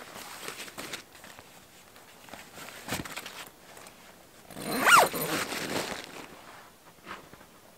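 Canvas tent door being closed from inside: rustling of the flap, a dull thump about three seconds in, then a zip about a second long near the middle, the loudest sound, as the door is zipped shut.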